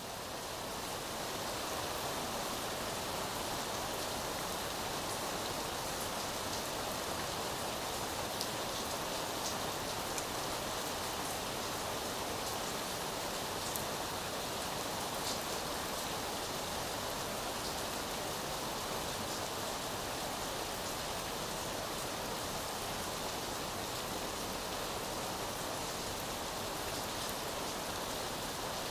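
Steady rain falling, with faint scattered drop ticks, fading up over the first second or so.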